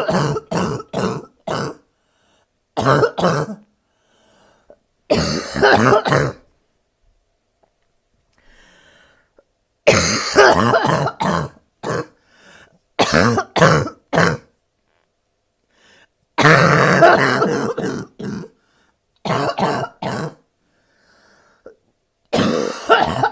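A woman's barking cough from bronchitis, coming in repeated fits of several sharp coughs each, about eight fits with short pauses between them.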